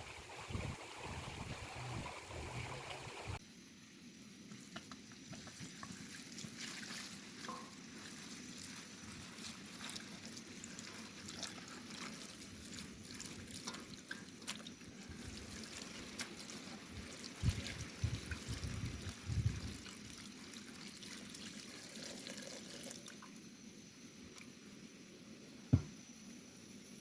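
Cooking over a wood fire: an even crackling hiss full of fine pops, like food sizzling, broken by a few dull knocks and one sharp knock near the end.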